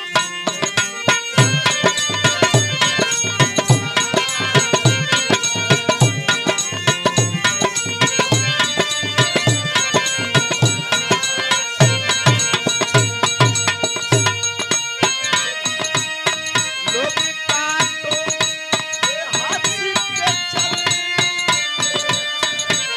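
Instrumental Bhojpuri birha folk music: a harmonium playing a melody in steady held notes over a dholak (two-headed barrel drum) beat. The drum's deep bass strokes stop about fifteen seconds in, leaving the harmonium with lighter drum strokes.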